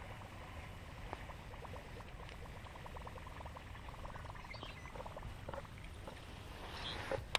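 A buzzbait being reeled back across calm water on a baitcasting reel: a faint rapid ticking with light gurgling from the lure, over a low wind rumble on the microphone. There is a single knock near the end.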